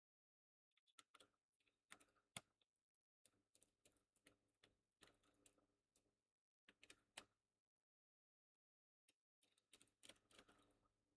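Faint small clicks and taps in several short runs, with pauses between: a screwdriver backing screws out of a Dell laptop's plastic case, and small parts being handled.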